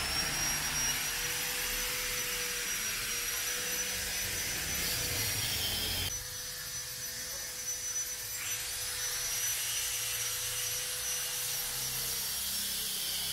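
High whine of an electric motor running, over a steady hum and hiss. The whine cuts out about six seconds in, then spins back up, rising in pitch, a couple of seconds later.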